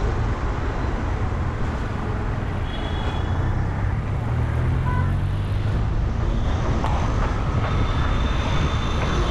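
Street traffic heard from a moving vehicle: a steady low road rumble with the engines of passing city traffic.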